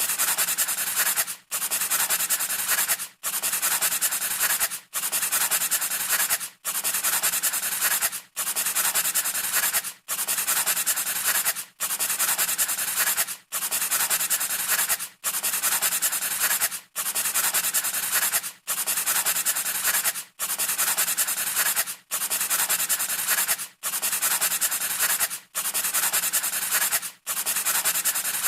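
Pencil scratching on paper in even strokes, about one every 1.7 seconds with a brief silent gap between each, repeating identically as a looped sound effect.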